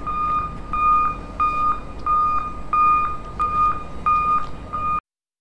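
Electronic beeper repeating one steady beep about two to three times a second, like a reversing alarm, over the running noise of a toy tractor's small electric motor and wheels. The sound cuts off suddenly near the end.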